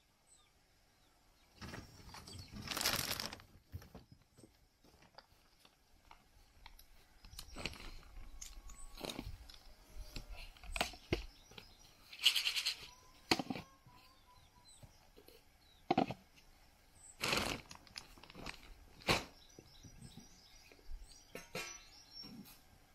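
Plastic poultry feeders and drinkers being handled and taken apart: a string of knocks, clicks and scrapes as lids and bases are lifted and set down, with a few louder crunching, rustling stretches, the loudest about three seconds in.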